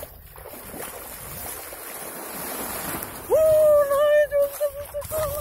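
Small waves washing and breaking around the legs in shallow surf, with wind on the microphone. About three seconds in, a loud, steady high tone with overtones starts with a quick upward glide and holds to the end.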